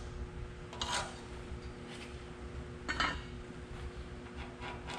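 A marking tool scraping in short strokes on a steel truck frame rail while the outline of a C-notch is traced, two brief scrapes about a second and about three seconds in, over a steady faint hum.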